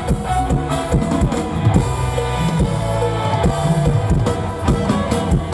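Mor lam band playing an instrumental passage between sung verses, with a steady drum-kit beat under sustained instrument notes.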